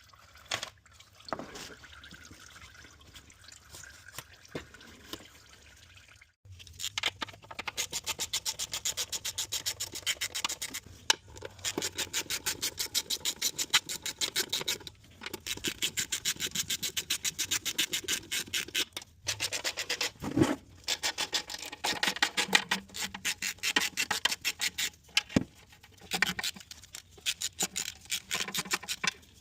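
A hand ratchet clicking in fast, even runs of several seconds with short breaks, starting about seven seconds in. Before that there are only quieter, scattered small sounds.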